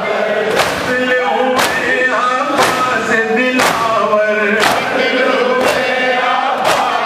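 A man singing a noha, a Shia lament, into a microphone, with a crowd of men chanting along. The crowd's chest-beating (matam) lands together in sharp strokes about once a second.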